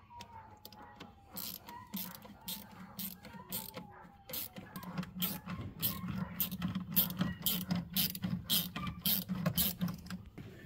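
Hand ratchet clicking as fasteners are worked loose. The strokes are spaced out at first and come quickly from about halfway through.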